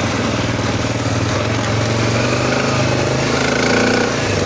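CFMOTO X5 500 ATV's single-cylinder engine running with a steady, rapid pulse, carrying a knock and a grinding from inside the engine.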